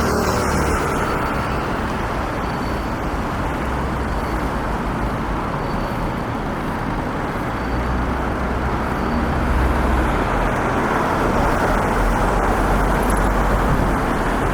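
Steady city road traffic noise: the wash of passing cars and engines, with a low rumble that swells at times.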